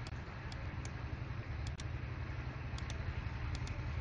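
Computer mouse clicking several times, often in quick pairs, as short sharp ticks over a steady low background hum.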